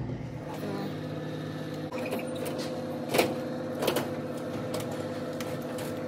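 Hands working inside an open snack vending machine: a few short knocks and clatters from the trays and packages, the two loudest about three and four seconds in, over a steady electrical hum.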